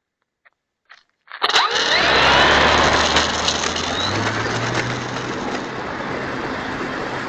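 Radio-controlled plane's electric motor and propeller running at power, mixed with heavy wind rush. A few faint clicks come first, then the sound starts suddenly about a second and a half in, with brief sweeping pitch changes at first, and cuts off abruptly at the end.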